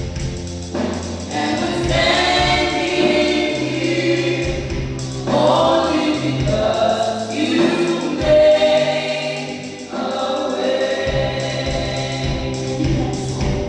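A choir singing a gospel hymn over steady bass notes from an accompanying instrument.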